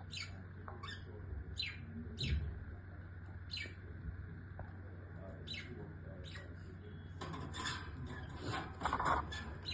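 Small birds chirping: short, sharp calls that sweep downward in pitch, one every second or so, growing busier and overlapping in the last few seconds, over a steady low hum.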